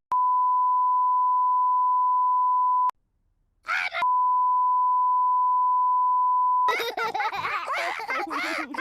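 Two long censor bleeps, each a steady beep of about three seconds, covering swear words, with a short snatch of voice between them. Cartoon children's laughter breaks out near the end.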